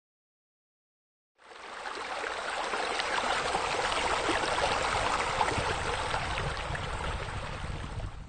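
Running, splashing water, a steady rush that starts abruptly about a second and a half in.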